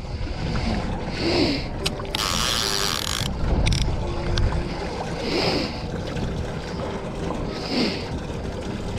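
Small boat under way on a Yamaha outboard: a steady low rumble of the motor and water against the hull, with wind on the microphone. A hiss lasting about a second comes about two seconds in.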